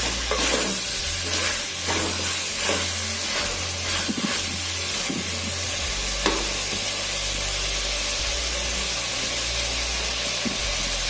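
Chopped vegetables sizzling in coconut oil in an earthen clay pot as they are sautéed and stirred, with scraping strokes against the pot through the first half and a single sharp knock about six seconds in.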